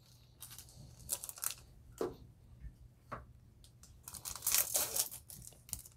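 A foil Yu-Gi-Oh booster pack wrapper being crinkled and torn open by hand. Short crackles come first, and the loudest run of tearing is about four to five seconds in.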